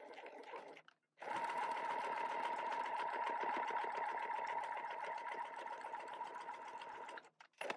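Electric sewing machine stitching a seam through fabric and a paper foundation pattern, running steadily with rapid needle strokes for about six seconds after a brief pause about a second in, then stopping shortly before the end.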